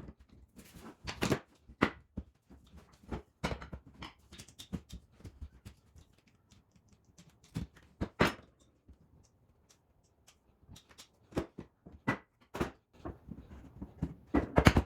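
Irregular knocks and taps on wood, with a couple of louder knocks, as parquet boards are worked on by hand.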